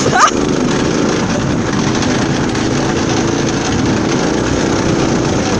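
Golf cart running steadily as it drives along a wooded trail, with a short high-pitched gliding sound right at the start.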